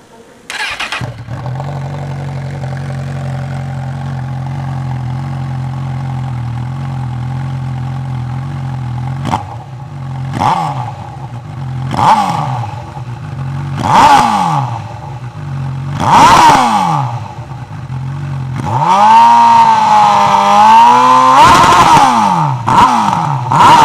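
Honda CB1000R's inline-four engine, breathing through an aftermarket Hurricane Taylor Made exhaust tip on the stock silencer body, starting about half a second in and idling steadily. It is then blipped sharply about every two seconds, held at higher revs with a wavering note for a few seconds, and blipped twice more near the end.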